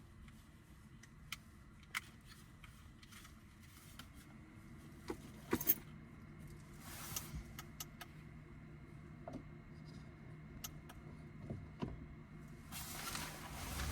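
Scattered light clicks and clinks of small hard objects being handled, loudest in a quick cluster about five and a half seconds in, followed near the end by a rush of noise.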